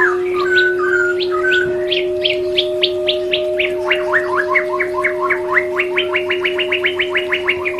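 White-rumped shama (murai batu) singing a run of quick whistled notes that speeds up about halfway through into a rapid, evenly repeated series. A steady low drone continues underneath.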